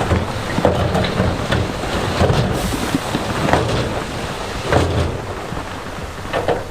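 Heavy diesel earthmoving machinery running under load, with stones clattering and knocking against each other and the steel several times.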